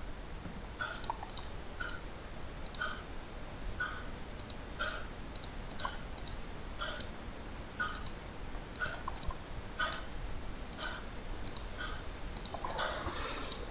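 Computer mouse buttons clicking, often in quick pairs, about once a second, with a brief rustle near the end.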